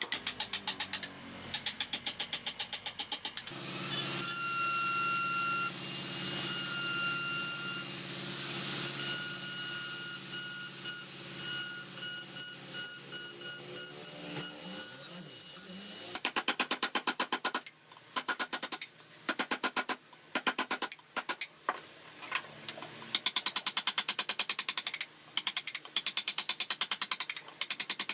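Hand gouge cutting wood in quick short strokes. About three and a half seconds in, a handheld electric rotary tool spins up and runs with a steady high whine as it grinds the wood, then stops about sixteen seconds in. After that come fast repeated scraping cuts of a flat carving blade paring wood.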